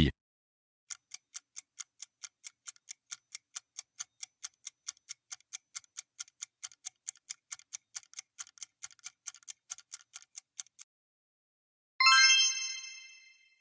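Quiz countdown timer sound effect: clock-like ticks at about four a second for roughly ten seconds. Shortly after the ticking stops, a bright chime rings and fades out, marking the reveal of the correct answer.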